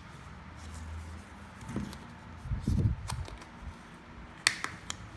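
A product box being handled and worked at to open it: a few dull bumps, then several sharp clicks and taps, the loudest about four and a half seconds in.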